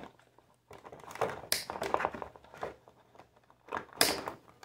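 Wire cutters snipping through clear plastic packaging ties, with two sharp snips, about a second and a half in and near the end, and crinkling of the plastic packaging between them.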